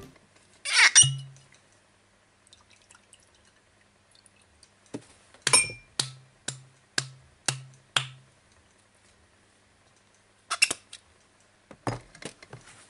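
Liquid glugging out of a glass bottle as it is poured into a drinking glass, about six glugs some half a second apart. Sharp glass clinks come about a second in and again twice near the end.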